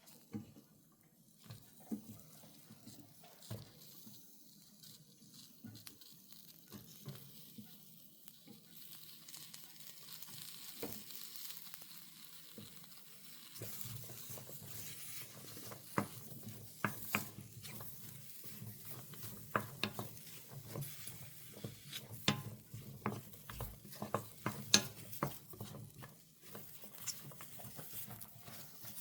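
Julienned king oyster mushrooms being stir-fried in a pan: a soft sizzle with sharp clicks of the utensil against the pan. The sizzle and clicking get louder about halfway through.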